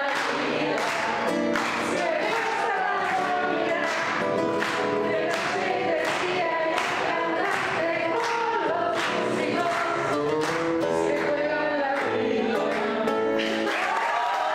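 A woman and a man singing together over a strummed acoustic guitar, in an even, driving strumming rhythm.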